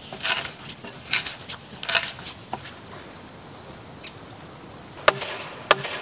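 A hand auger boring into a wooden branch, a few rough rasping strokes. About five seconds in come two sharp knocks of a mallet driving a wooden peg into the branch frame.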